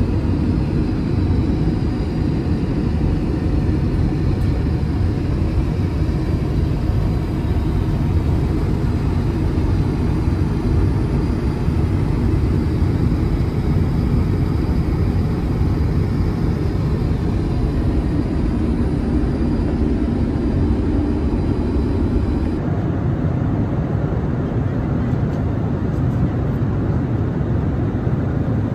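Steady rumble and rushing air of an Airbus A380 cabin in flight: engine and airflow noise heard from inside the aircraft, strongest in the low end. The hiss thins a little about two-thirds of the way through.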